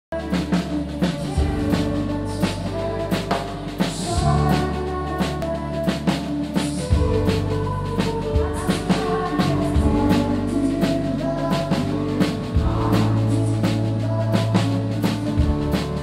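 Band playing live: a drum kit with snare and bass drum hits keeping a steady beat over held bass notes and sustained chords from other instruments.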